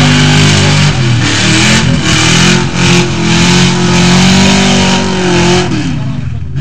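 Lifted 4x4 pickup truck on 44-inch mud tires running hard through deep mud, its engine held at high revs, then dropping off near the end.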